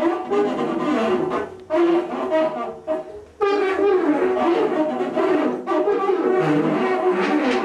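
Home-made installation instrument sounded by pulling strings that hang from the ceiling: several sustained pitched notes sounding at once and shifting between pitches. They break off briefly a couple of times, then sound continuously in a thick cluster from about halfway through.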